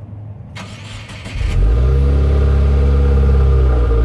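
A 2016 Subaru WRX's turbocharged 2.0-litre flat-four starting through the stock exhaust. The starter cranks for about a second, then the engine catches and flares to a loud, low, deep high idle, its pitch easing down slightly near the end.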